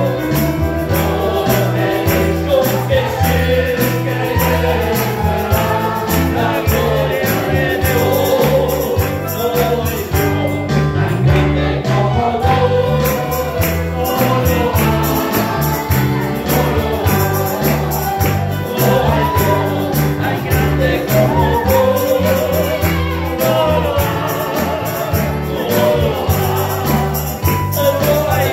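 Christian praise song: a group of voices singing together over a band, with a stepping bass line and busy, steady percussion.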